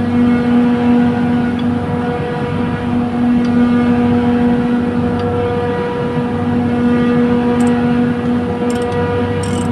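Trane chiller compressor running: a loud, steady machine hum with a strong pitched tone and overtones, the main tone dropping out briefly twice.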